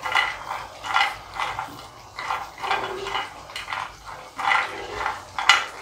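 Cashews dry-roasting in a nonstick frying pan with no oil, stirred with a silicone spatula: a run of short scraping and rattling strokes, roughly two a second, as the nuts slide across the pan.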